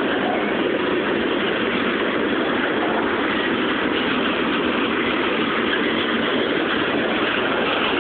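Covered hopper cars of a CSX freight train rolling past close by: a steady, even noise of steel wheels on the rails.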